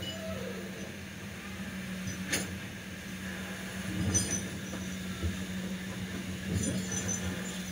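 Kobelco hydraulic excavator's diesel engine running steadily with a constant hum, with a sharp metallic clank a couple of seconds in and duller knocks later as the boom and bucket move and the bucket goes down into the water.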